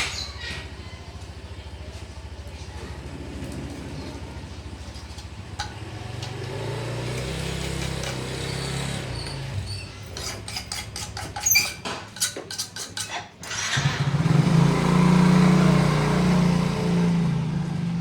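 Motorcycle engine running: a steady low idle that rises about six seconds in, a run of sharp clicks around two thirds of the way through, then louder revving near the end.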